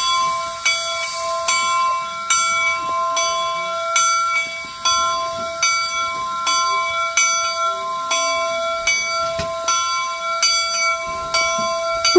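Bell of the replica Union Pacific No. 119 steam locomotive ringing steadily, about two strokes a second, each stroke ringing on into the next, as the engine rolls in.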